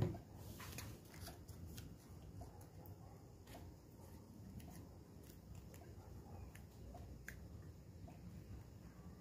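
Faint rustling and light clicking of paper and cardboard pieces being handled and pressed together while gluing, with one short knock at the very start.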